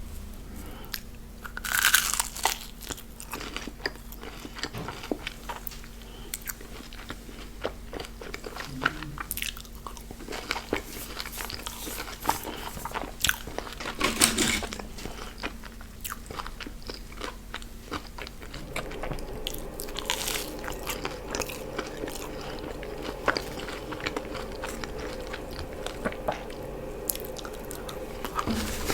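A person biting and chewing crunchy fast food, with sharp crackling crunches and wet chewing. Louder crunchy bites come about two seconds in, near the middle, and again about two-thirds of the way through.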